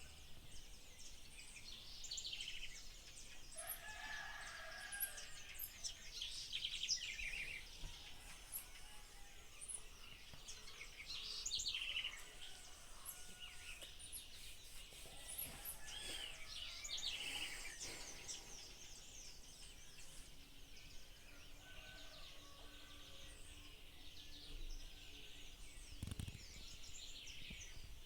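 A rooster crowing faintly among many small birds chirping and trilling: a country dawn chorus.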